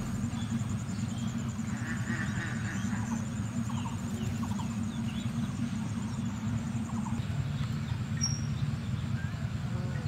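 Faint chirps of small birds over a steady low rumble.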